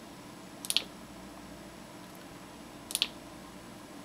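Hexbright flashlight push-button switches clicked: two quick double clicks, press and release, about a second in and again near three seconds. They step the lights through their brightness modes.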